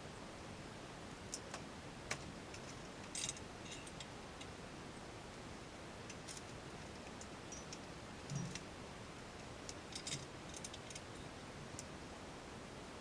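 Sparse light metallic clicks and jingles from small metal parts being handled, with two brief jangling clusters, one about three seconds in and one about ten seconds in, and a soft thump a little after eight seconds.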